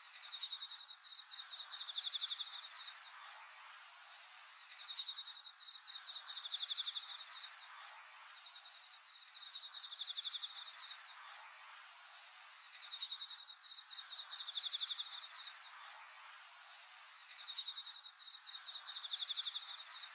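A small animal's high, rapidly pulsed trilling call, repeated about every four seconds, each phrase lasting roughly two seconds and ending in a louder, faster trill, over a faint steady outdoor hiss.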